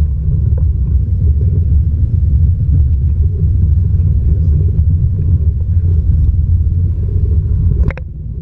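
Steady low rumble aboard a jetski at sea, loud on the microphone, with one sharp knock near the end.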